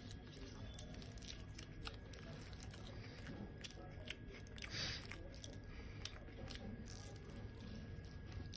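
Close-up chewing and biting of an omelette burger, with many small wet mouth clicks. A brief louder rustle comes about halfway through.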